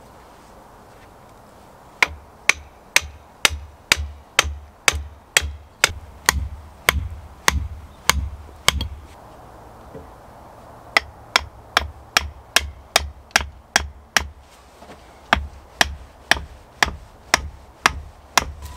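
A wooden stake being hammered into an earth floor: sharp, evenly paced blows about two a second, in two runs with a pause of about two seconds in the middle.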